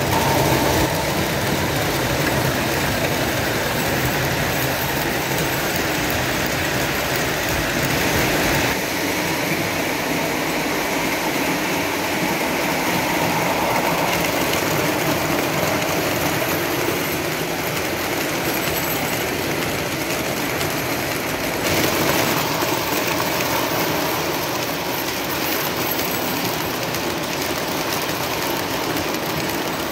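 Lionel O-gauge model trains running on three-rail metal track: a steady rumble and clatter of wheels and motors. The sound shifts abruptly about nine and twenty-two seconds in.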